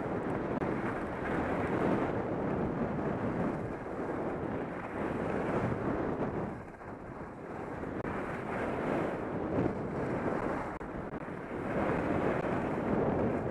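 Wind rushing over a helmet-mounted camera's microphone while skiing downhill, mixed with the hiss of skis scraping over firm snow, swelling and easing from turn to turn. It drops off briefly a little past halfway.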